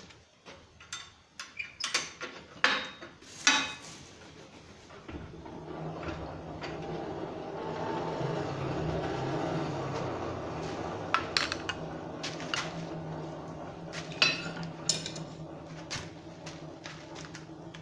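Steel tools and rod clanking a few times, then a forge's blower starts about five seconds in and runs steadily, a rushing blast of air with a low hum, as a steel rod is heated; more metal clanks break in near the middle.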